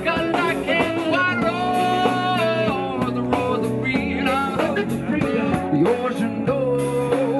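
Live band playing a song, with a singer holding long, gliding notes over the accompaniment.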